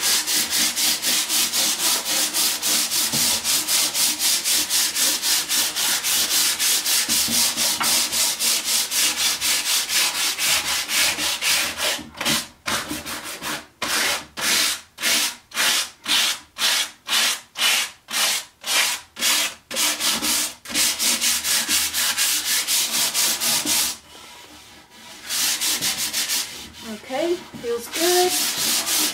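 120-grit sandpaper rubbed back and forth by hand over dried, raised drywall compound, knocking off the rough edges, in rapid, even strokes. Partway through the strokes slow to about two a second, and there is a brief pause near the end before the sanding resumes.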